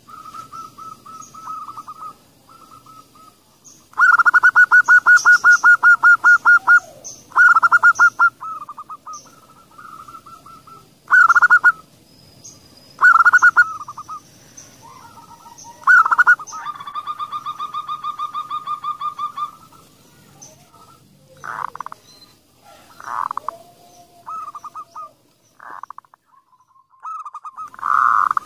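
Zebra doves (perkutut) cooing: short, rounded coos spaced a few seconds apart, with a loud, fast rattling run of coos about four seconds in and a quieter, steadier run of pulsed notes a little past the middle.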